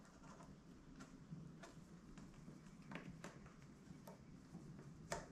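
Near silence with faint, scattered small ticks and taps, about half a dozen, from a rubber grommet being worked by hand into a motorcycle windshield's mounting hole.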